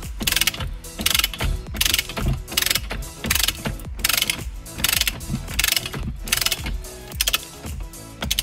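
Hand ratchet wrench clicking in quick repeated strokes, about two bursts of clicks a second, as it runs the steering wheel's retaining nut onto the steering column.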